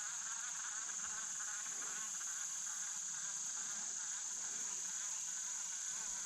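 Steady chorus of insects by the creek, a constant high-pitched drone with a fainter warbling chirr beneath it.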